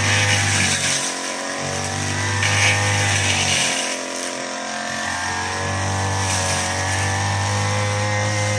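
Brush cutter's small petrol engine running while cutting grass, its pitch rising and falling as the throttle is worked.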